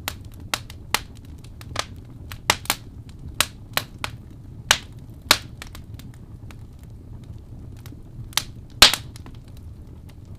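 Wood fire crackling: irregular sharp pops and snaps over a low steady rumble of burning, the loudest pop about nine seconds in.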